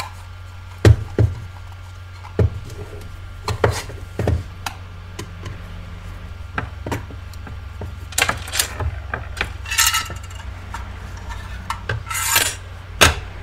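Taking apart an FVDI diagnostic tool by hand: a small screwdriver and the tool's plastic end cap and aluminium housing making scattered sharp clicks, knocks and scrapes as the screws come out and the circuit board slides free. A steady low hum runs underneath.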